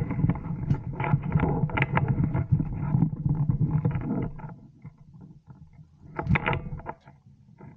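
Rustling and rubbing of clothing and gear against a body-worn camera's microphone as the player moves and shoulders his rifle, a dense crackling rumble that dies down after about four seconds, with another short burst about six seconds in.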